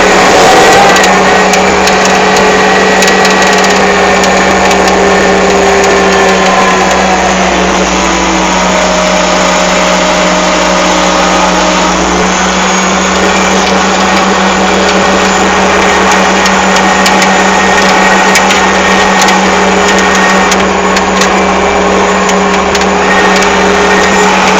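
Excavator's diesel engine running under load with the hydraulics working, the pitch shifting as the machine moves, and scattered knocks and clicks.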